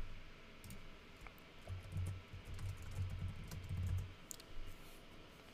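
Computer keyboard typing: scattered, quiet key clicks as a short terminal command is entered. A low hum comes in about a second and a half in and stops about a second before the end.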